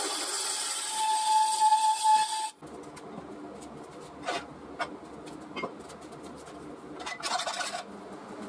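Turning tool cutting the inside of a spinning mulberry bowl on a wood lathe, a loud hissing cut with a steady high squeal from about a second in. It cuts off abruptly about two and a half seconds in, leaving a quieter background with a few light clicks and a short burst of noise near the end.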